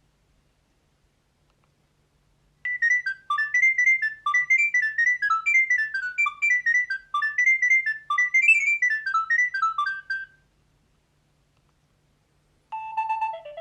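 Nokia 3200 mobile phone ringtone: a quick melody of short notes that starts about two and a half seconds in and runs for about eight seconds. A different ringtone begins near the end.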